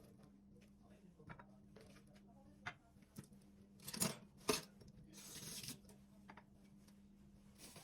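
Household handling sounds over a faint steady hum: scattered light clicks and taps, two sharper knocks about half a second apart near the middle, then a short burst of hiss.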